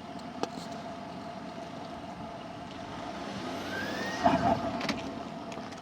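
Range Rover L322's 4.4 TDV8 twin-turbo diesel running in reverse up a slope, with a steady whine. About three seconds in a whistle rises in pitch, then just after four seconds comes a short hiss like a let-off of pressure: the strange reversing noise the owner cannot diagnose, in a video asking whether the turbos are dying.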